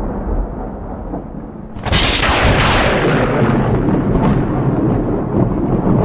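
Improvised foley rumbling boom. A low rumble runs throughout, and about two seconds in a sudden loud rushing burst comes in and slowly dies away into the rumble.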